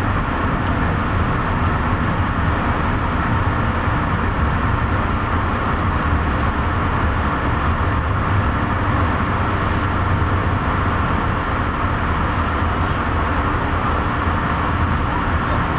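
Steady rolling rumble and hiss of the Amtrak Hiawatha passenger train in motion, heard from inside the coach.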